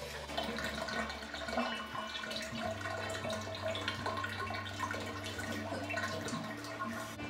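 Water gurgling and dripping in a bathtub, with a steady low hum underneath.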